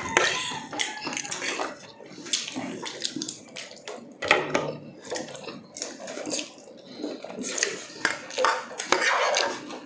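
Close-miked eating of fried chicken and spaghetti: chewing with many small crisp crackles and wet mouth sounds, and forks and spoons scraping and clinking on the food containers.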